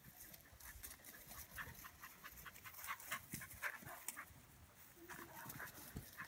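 Herding dog panting quickly and softly, about four breaths a second, while it works the sheep.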